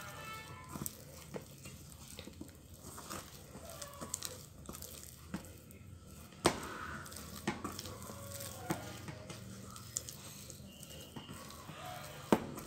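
Hands kneading soft, sticky bread dough in a stainless steel bowl, working in the margarine and salt: wet squishing and tearing, with a few sharp knocks, the loudest about six and a half seconds in and near the end.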